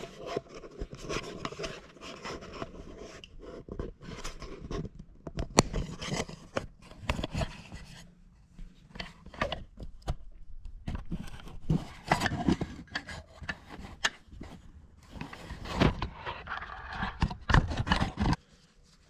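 Hand tools and metal engine parts being worked on the John Deere 332's exposed valve gear: irregular clinks, knocks, scrapes and rubbing, as the rocker shaft is being unbolted. The work pauses briefly about halfway and stops shortly before the end.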